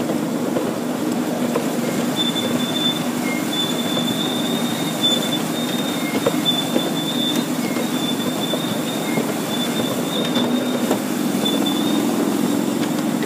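Miniature railway train running along the track with a steady rumble. A high-pitched wheel squeal comes and goes from about two seconds in until near the end as it takes a curve, with a few light clicks from the rails.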